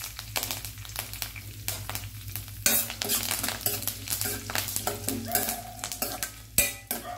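Curry leaves, dried red chillies, mustard seeds, cumin and dals sizzling and crackling in hot oil in a stainless steel kadai: the tempering for sagu. About a third of the way in, a steel spoon starts stirring, scraping and tapping against the pan.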